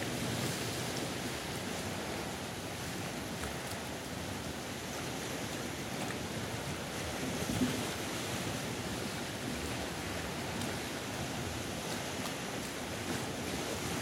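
Sea surf washing and breaking against the rocks, a steady wash of water with one brief louder slap a little past halfway.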